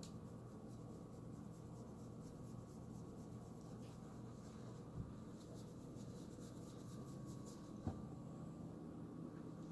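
Faint scratching and rustling as a cat paws and claws at a hand and the rug, over a steady low hum, with two soft knocks about five and eight seconds in.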